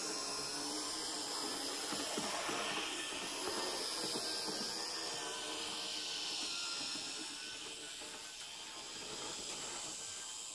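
Z-scale model train running along the track: a steady hiss with a faint high whine from the tiny electric motor and wheels, fading after about seven seconds as the train moves off.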